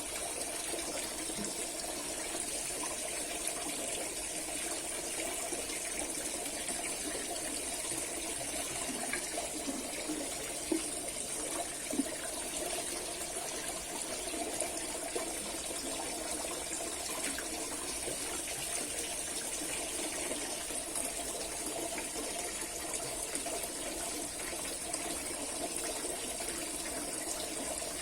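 Steady rush of water throughout, with a few faint knocks.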